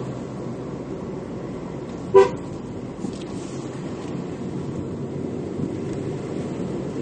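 Ford Focus MK3 1.6 EcoBoost petrol engine running steadily, with a short car-horn toot about two seconds in.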